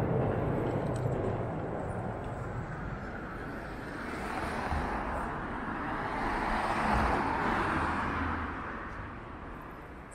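A car passing close on a city street: its tyre and engine noise swells to a peak about two-thirds of the way through, then fades away, over a low traffic rumble that eases off at the start.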